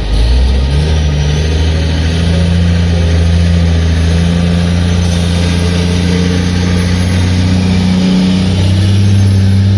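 Heavy construction machine's diesel engine running steadily, its pitch stepping up near the end as the engine speeds up.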